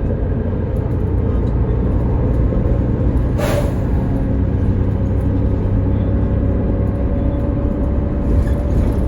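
Mercedes-Benz Citaro O530 bus running with a steady low engine and drivetrain rumble. A short hiss of released air from the air system sounds about three and a half seconds in.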